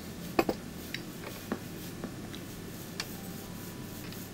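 A few light, sharp clicks and taps, a handful spread over the few seconds, from wires, spade connectors and the plastic timer body being handled.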